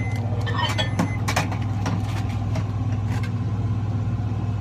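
Steady low hum of an idling truck engine heard inside the cab, with a few light clicks and knocks about a second in.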